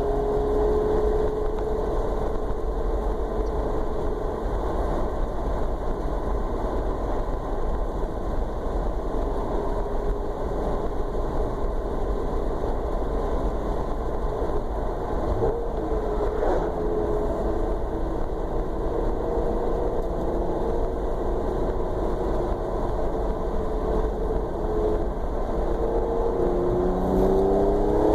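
An engine running steadily at idle; near the end its pitch starts to rise as it revs up.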